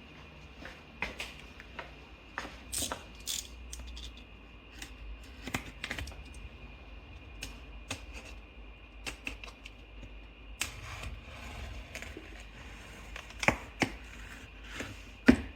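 Cardboard packaging being opened and handled: scattered light clicks, taps and scrapes of cardboard and packing, with a few sharper knocks near the end.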